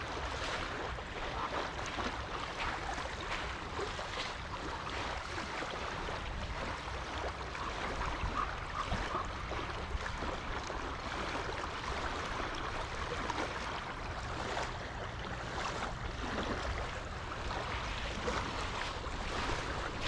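Footsteps crunching on a leaf-covered woodland trail, set against a steady rushing background noise with a low rumble.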